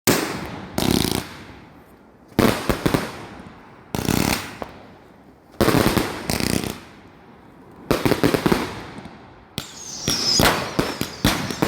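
A large firework cake firing shot by shot, each a sudden bang with a fading crackle, about every one and a half to two seconds, from a cake that was malfunctioning. Near the end it breaks into a rapid string of pops with a high falling whistle.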